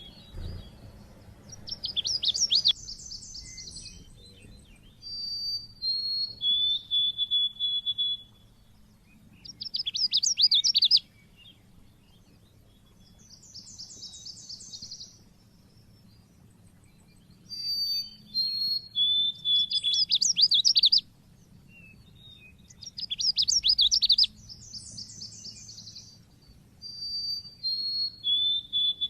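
Pleci (white-eye) song in the sharp 'cit keres' chirping style: repeated bouts of fast, high chirps and trills mixed with short steady whistled notes, each bout lasting one to three seconds with pauses of a few seconds between them.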